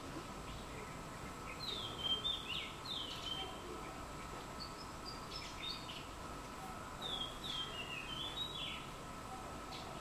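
A small songbird calls in three short runs of quick, high, down-slurred chirps, about two, five and seven seconds in, over a faint steady background whine.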